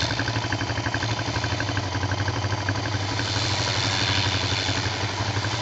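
ATV engine idling steadily nearby with an even low pulse.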